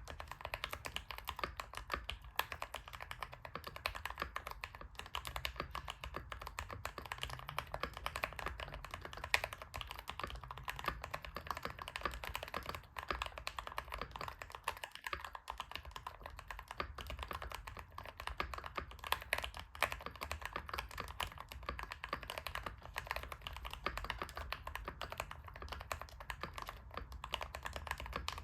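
Keychron K2 Pro mechanical keyboard being typed on quickly and without pause: a dense, continuous stream of key clacks.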